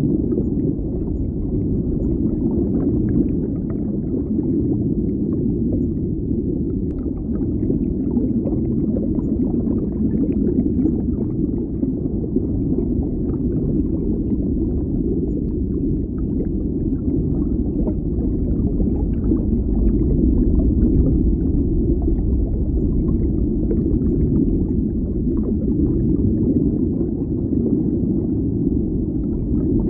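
Underwater bubbling water ambience: a steady, muffled low rumble of water with faint bubble pops scattered through it.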